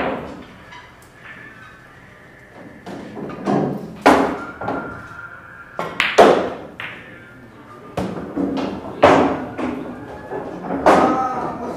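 A series of sharp knocks and thuds, about one every second or two, each with a short ringing tail, over faint background music.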